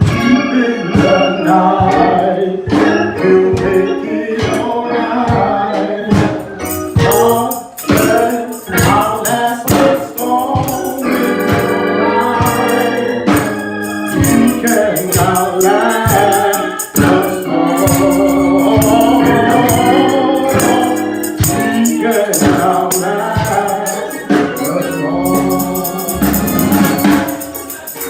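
Gospel music: organ and choir singing over a steady drum beat.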